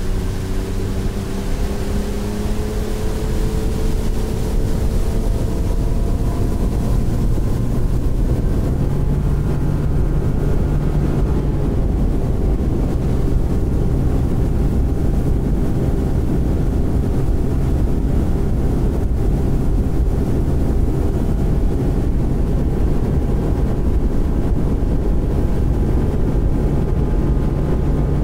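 Outboard motor of an aluminium fishing boat running at speed, its pitch climbing slowly over the first several seconds and then holding steady, over a rush of wind and water.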